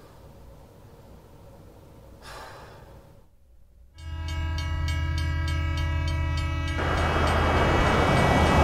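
Quiet room tone, then about four seconds in a train horn suddenly sounds, loud and steady, for about three seconds. It gives way to a loud rushing noise that keeps building.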